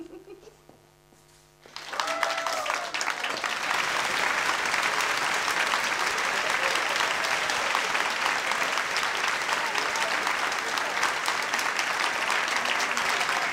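A piano's last notes fade softly, then about two seconds in an audience breaks into steady applause, with a call or two from the crowd at its start.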